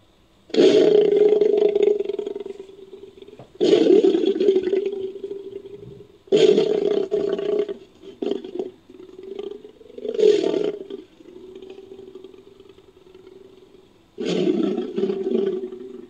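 Designed sound effect of an American lion, the extinct Ice Age big cat: a series of deep roars. There are five loud ones a few seconds apart, each lasting a second or two and tailing off, with quieter, shorter calls between them.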